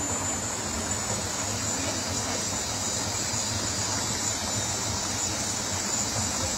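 Steady rushing of a shallow, rocky jungle river, with a steady high-pitched hiss over it.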